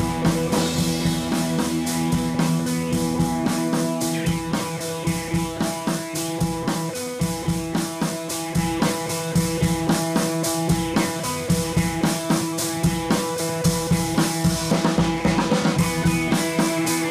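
Background music with a drum kit and guitar, a steady beat.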